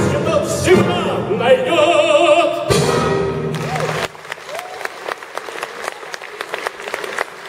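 Orchestra playing the last bars of a song, with a held wavering note and a final chord struck a few seconds in. The music stops about four seconds in and audience applause follows.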